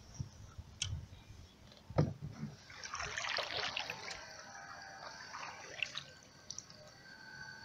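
Canoe paddle strokes: water splashing and trickling off the paddle blade, busiest about three to four seconds in, with a knock about two seconds in.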